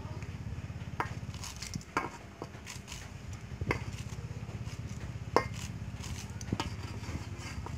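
Knife shaving kernels off a cob of white corn into a metal basin: sharp, irregular scrapes and clicks of the blade every second or two, over a steady low hum.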